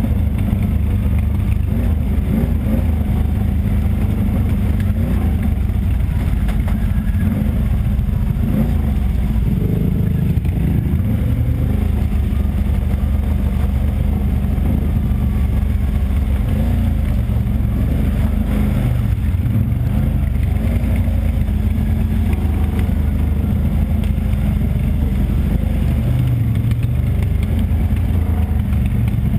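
ATV engine running under load as the quad rides along a dirt trail, heard from on board, the engine note rising and falling with the throttle.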